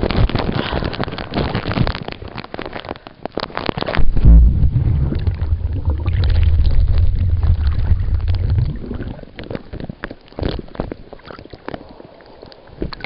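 Lake water splashing and crackling against the camera's microphone, then a deep, muffled rumble for about four seconds as the camera goes underwater, followed by scattered clicks and bubbling.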